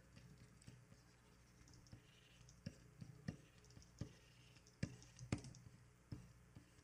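Faint, irregular clicking of computer keyboard keys, about a dozen clicks, the loudest near five seconds in, over a low steady hum.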